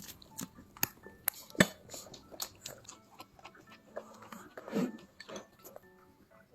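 A small child eating, with chewing and many sharp, short crunchy clicks, and a brief vocal sound just under five seconds in.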